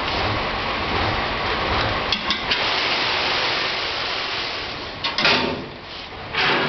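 A tipping metal cart emptying coffee cherries into a water tank, over a steady rush of water. A few sharp metallic knocks come about two seconds in, and two louder clattering bursts near the end.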